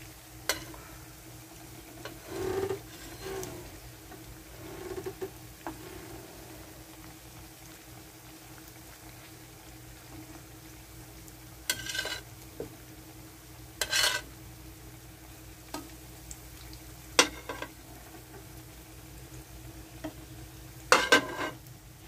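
Breaded chicken nuggets frying in hot oil in a pan, with a steady sizzle. Several short, sharp louder bursts stand out, the loudest near the end.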